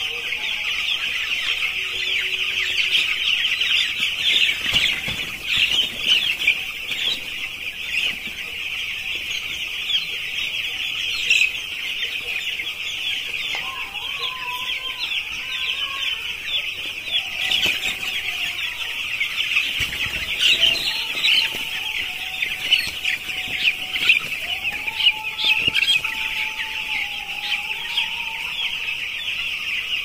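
A dense, continuous chorus of high-pitched peeping from hundreds of ten-day-old broiler chicks.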